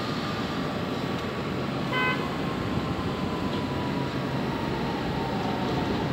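R142 subway train approaching along the elevated track, with a steady running rumble and a slowly falling whine. It gives one short horn toot about two seconds in.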